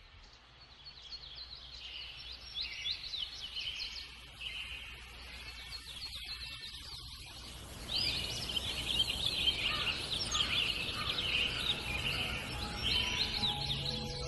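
Many birds chirping and trilling at once in a dense outdoor chorus, growing louder about eight seconds in.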